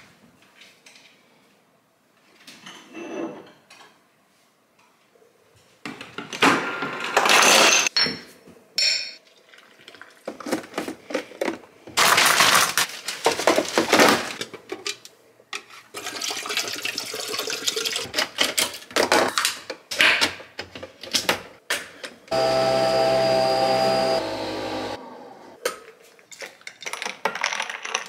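Kitchen sounds of making an iced coffee: a string of clatters, rustles and handling noises with a loud rushing spell in the middle. A small appliance motor runs with a steady hum for about two and a half seconds near the end, followed by light stirring in a glass.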